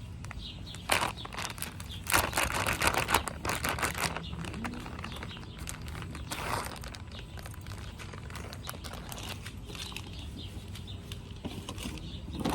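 Close handling noises: crinkling and rustling with quick sharp clicks, from the fabric makeup bag and its contents being handled. The noises come in short clusters, a dense run about two to four seconds in and single bursts around one and six seconds in.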